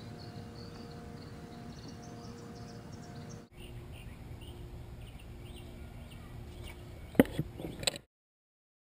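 Outdoor background noise with faint, scattered bird chirps. A few sharp knocks come near the end, the loudest sounds here, and then the sound cuts off suddenly.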